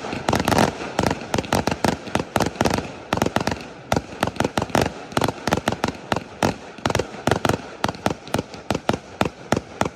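Firework display: a rapid, continuous volley of sharp bangs, several a second, which stops right at the end.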